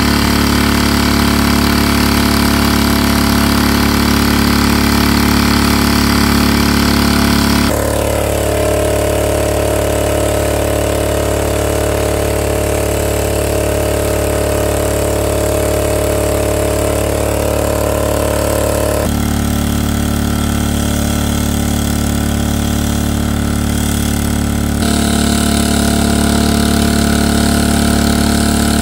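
Small engine of a water pump running steadily as it draws water out of a pool. The hum holds at an even speed, its tone changing abruptly three times.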